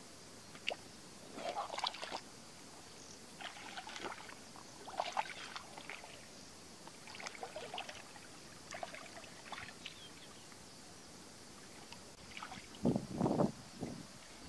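Hands splashing and sloshing in shallow muddy water, in short irregular splashes, with a few louder, deeper splashes near the end.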